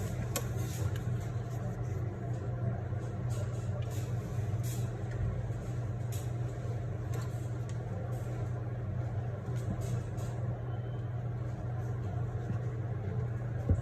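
Steady low machine hum with scattered light clicks and taps.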